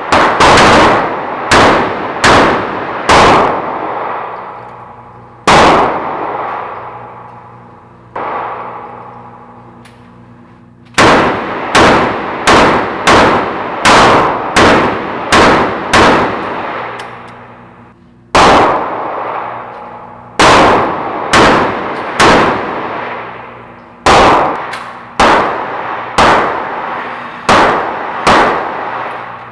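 Repeated gunshots ringing through an indoor shooting range, each followed by a long echo. A Taurus 8-shot .22 Magnum revolver is fired in runs of quick shots, and more shots come from other lanes near the end while the target is being reeled in.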